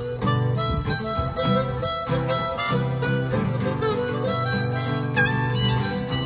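Harmonica playing a melodic lead with held and bending notes over a steadily strummed acoustic guitar.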